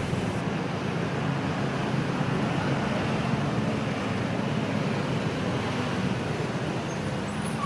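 Steady street traffic: truck and motorcycle engines running under a continuous hum of road noise.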